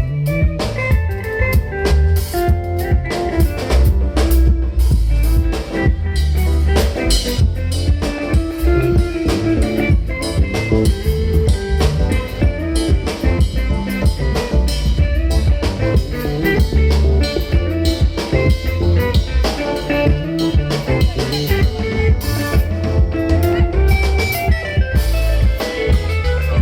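Live band music with guitar, bass and drum kit playing a steady beat, heard over a PA system during a sound check.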